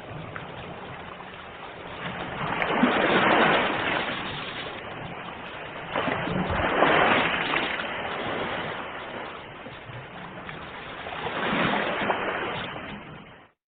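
Sea waves breaking: a steady wash of surf that swells three times, about four seconds apart, then cuts off suddenly near the end.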